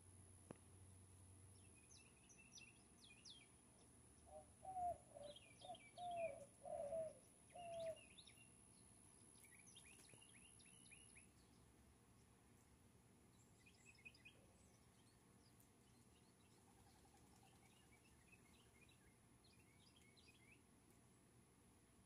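White-winged dove cooing a run of about six short hooting notes, starting about four seconds in. Small birds give scattered series of high chirps before, during and after it.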